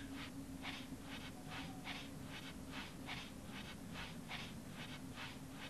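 Footsteps crunching through snow, an even walking rhythm of about three steps a second, over a faint steady hum.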